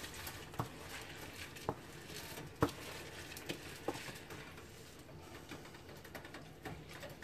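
Raw rice being pushed with a wooden spoon out of a steel bowl into a pan of spiced liquid: a soft patter of grains dropping in, with a few light knocks of the spoon against the bowl.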